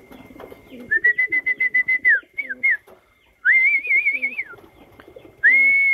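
A person whistling to call pigeons in to feed: three loud, held, warbling whistles of about a second each, with two short ones after the first. Pigeons coo low underneath.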